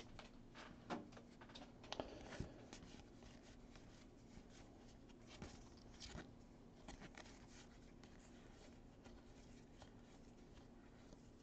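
Near silence, broken by faint, soft clicks and rustles of baseball trading cards being slid and flipped through by hand.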